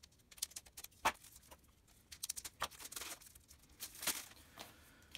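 Wrapping on a hardback book being slit with a small knife and pulled off by hand: a scatter of crinkles and sharp crackles, loudest about a second in and again around four seconds.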